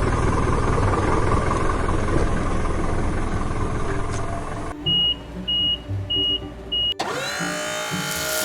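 Heavy construction-vehicle engine sound effect running with a steady low rumble, cutting off about five seconds in. A reversing alarm then beeps four times over a quieter engine, and near the end a burst of sliding tones comes in.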